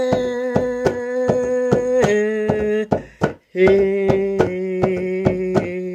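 A woman singing long held notes, dropping in pitch about two seconds in and again after a short break, over a hand drum struck in a steady beat of roughly three strokes a second.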